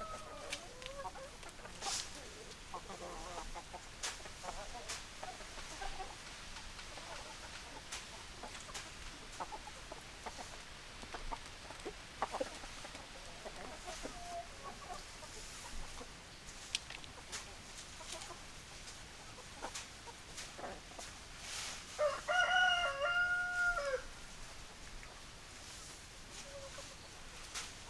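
Chickens clucking in short, scattered calls. About three-quarters of the way through, a rooster crows once, about two seconds long and the loudest sound.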